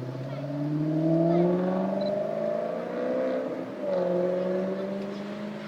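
Maserati GranTurismo S's V8 exhaust as the car accelerates, rising in pitch to its loudest about a second and a half in. The engine note dips briefly about three and a half seconds in, then climbs and holds again.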